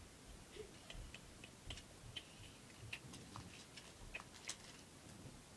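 Faint, irregular light clicks of small plastic fuse beads being rummaged through and picked out.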